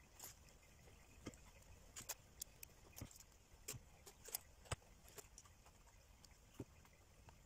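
Light, irregular clicks and clinks of aluminium scales and small hand tools being handled on a workbench, a dozen or so faint taps spread over a few seconds.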